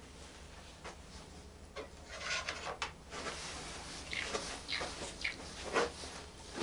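Irregular rubbing and scraping with small clicks from hands and a wrench working at the oil pump's line fitting on an engine block.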